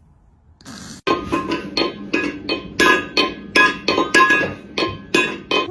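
Music: after about a second of quiet, a rhythmic run of bright, clinking plucked or struck notes, about three a second.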